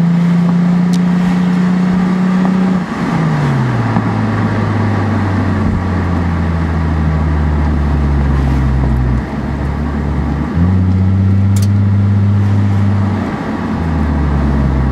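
2006 Lexus IS250's 2.5-litre V6 heard through a Greddy SE catback exhaust while driving, close to the tailpipe, over wind and tyre noise. The exhaust note drops in pitch about three seconds in, dips about nine seconds in, jumps back up about a second and a half later, and drops again near the end.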